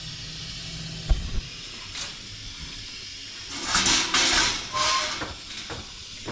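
Multi-ring gas burner burning with a steady hiss, with several louder noisy bursts between about three and a half and five and a half seconds in.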